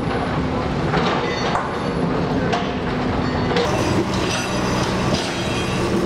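Diesel construction machinery, a backhoe and a trench compactor, running steadily, with a few sharp knocks early on and high metallic squealing in the second half.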